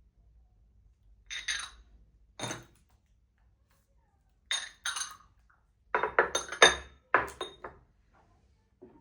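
Glass or ceramic dishes clinking against each other as they are handled and set down: a couple of clinks early, then a busier run of clinks in the second half, each with a short ringing tone.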